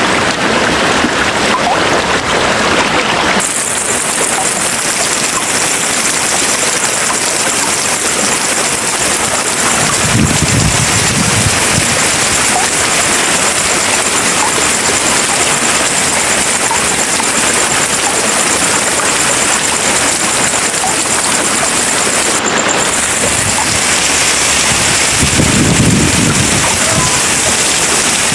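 Steady rain, a constant loud hiss whose tone changes abruptly about three and a half seconds in. Two brief low rumbles come through, one about ten seconds in and one near the end.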